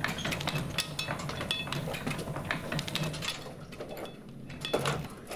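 Irregular clicks, knocks and rattles of a glass door being hurried shut and its handle worked, along with quick footsteps, over a low hum. A louder knock comes near the end.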